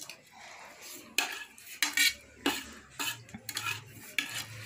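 Dishes and cutlery clinking and scraping during a meal: about half a dozen separate sharp clinks, spread irregularly.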